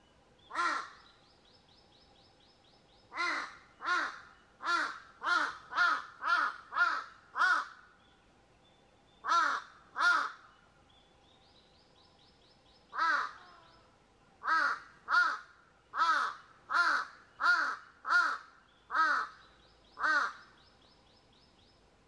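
Crows cawing in harsh threat calls, about twenty caws in runs of several at a time with short pauses between runs.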